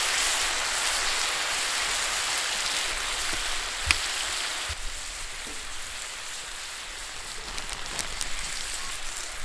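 Sliced meat and freshly poured sukiyaki sauce sizzling on a hot round iron griddle, a steady hiss. A sharp tap comes just before four seconds in, and the sizzle turns quieter about five seconds in.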